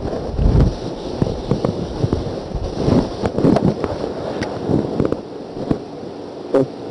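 Irregular taps, knocks and rustling from a marker being used on a whiteboard while the writer moves about in front of it.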